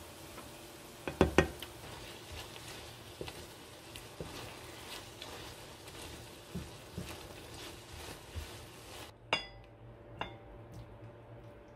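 Wooden spatula stirring and scraping food in a frying pan, with a couple of loud knocks about a second in. Near the end the pan clinks twice against a ceramic serving dish as the pasta is tipped out.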